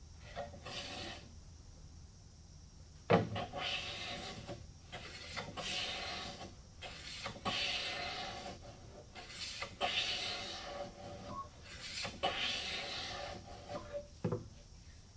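Hand plane shaving the edge of a rift-sawn white oak board, a series of rasping strokes with a short pause between each. A sharp knock about three seconds in and another near the end, as the plane is set down on the wood.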